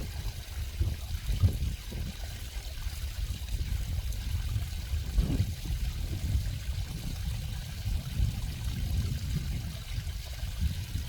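Water trickling and flowing in a stream, a steady, uneven noise weighted toward a low rumble.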